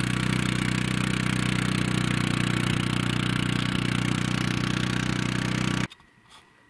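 ATV engine running at a steady speed while riding along a trail, loud and even with no change in revs; it cuts off suddenly near the end.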